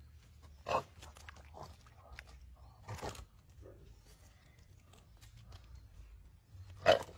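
A wild boar stuck in mud giving short cries as a Komodo dragon bites at its head. One cry comes about a second in, a quieter one around three seconds, and the loudest near the end, with faint wet crunching between them.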